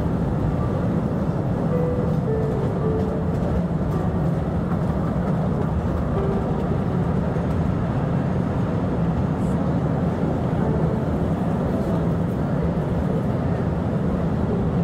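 Postojna Cave's open-carriage tourist train running along its rails, a steady low rumble heard from on board.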